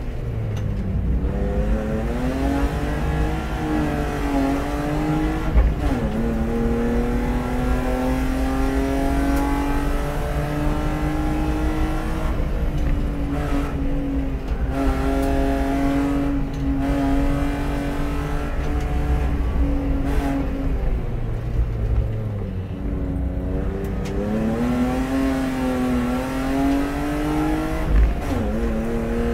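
BMW E36 320i's 2.0-litre straight-six racing up a hillclimb, revs climbing through the gears. The engine note drops sharply at an upshift about six seconds in, holds high and fairly steady for a long stretch, and falls off as the car slows for a bend a little past halfway. It then climbs again to another upshift near the end.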